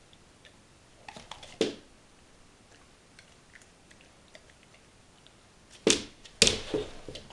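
Golden retriever chewing on a toy: a few crunching bites about a second and a half in, then a louder run of crunches near the end.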